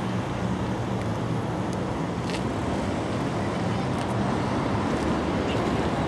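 Steady low engine rumble of road traffic with general outdoor background noise; a few faint clicks.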